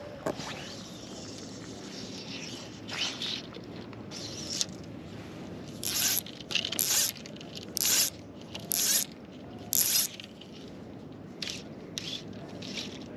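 Fly line being stripped in by hand through the rod guides: a run of short zipping hisses about a second apart, loudest through the middle of the stretch, with a few softer strips before and after.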